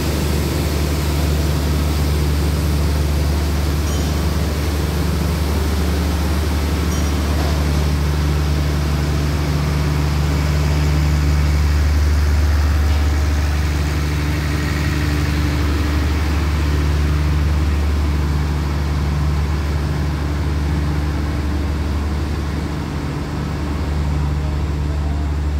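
Diesel-hauled passenger train pulling out of the station, a steady low engine drone as its coaches move past.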